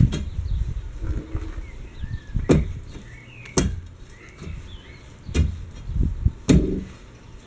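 Steel tamping bar driven down into the fill around a newly set gate post, about five irregular thuds as the fill is packed. Birds chirp between the blows.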